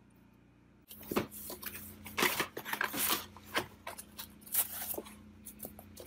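Unboxing noises: a cardboard box, its foam packing insert and the plastic wrapping being handled. From about a second in there is a busy run of scrapes, rustles and crinkles.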